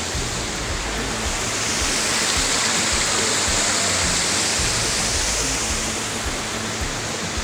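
Rushing water of a small rocky stream and waterfall, a steady hiss that grows a little louder about a second and a half in. Quiet background music is faintly heard underneath.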